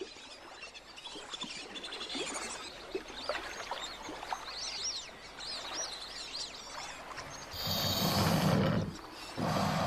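Small birds chirping faintly over quiet waterside ambience, then about seven and a half seconds in a loud rushing burst of noise lasting about a second and a half, which starts again just before the end, as the young rival saltwater crocodile challenges the big male.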